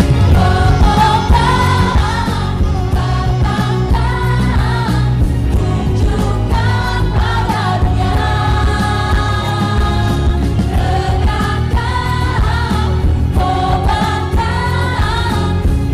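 A song: a voice singing a wavering melody over instrumental backing with a steady bass.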